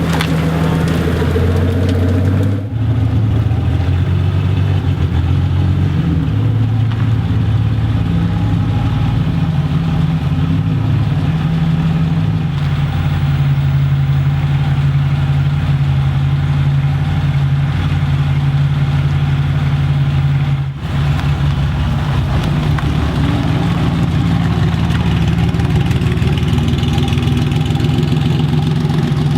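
Supercar engines idling with light blips of revs, a steady low running sound that shifts in pitch now and then. It breaks off abruptly twice, about three seconds in and again near two-thirds of the way through.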